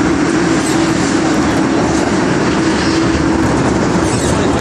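MTR Kwun Tong line metro train running along the track: a steady loud rumble of wheels and running gear, with a steady low hum that fades out about three and a half seconds in.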